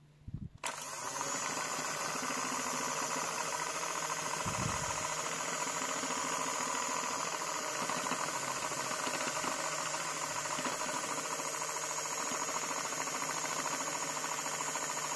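A motor-driven machine switches on abruptly about half a second in and runs steadily, with a hum and a high whine over a hiss.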